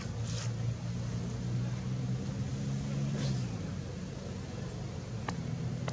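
Steady low hum of a running engine that fades about three and a half seconds in and picks up again near the end, with a few faint short clicks.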